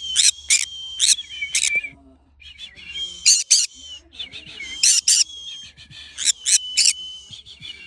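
Pet parrot calling: a run of sharp, repeated chirps over a held whistled note, in three bouts with short pauses between them.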